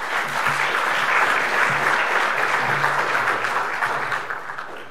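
Audience applauding. It swells quickly at the start and fades out near the end.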